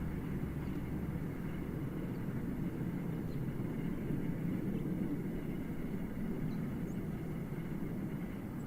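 Distant military jet aircraft passing high overhead: a steady, even low rumble that neither rises nor falls.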